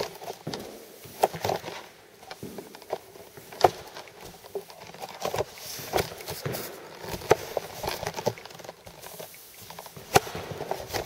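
T-bar applicator being pushed and pulled across a timber floor, spreading wet floor finish, with irregular clicks and knocks, several a second.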